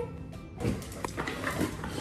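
A Bernese mountain dog pouncing on and scuffling with a yoga mat on a hard floor, with low dog noises and a sharp click about a second in, over background music.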